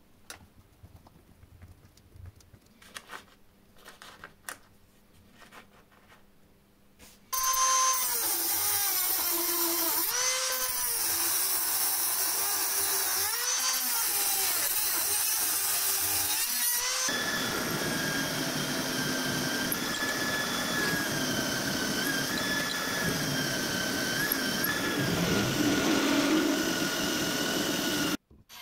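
After a few faint clicks and taps, a workshop power tool starts cutting about seven seconds in. At first it squeals with a wavering pitch; about ten seconds later it changes to a steadier, denser cutting noise with a high whine. It stops abruptly near the end.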